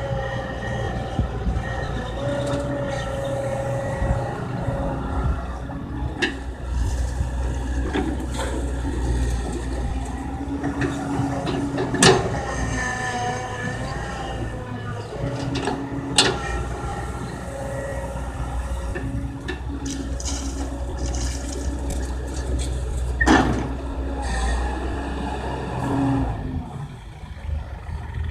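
Kobelco hydraulic excavator's diesel engine working steadily while digging and loading soil, with a handful of sharp knocks from the bucket and arm. The engine sound falls away near the end.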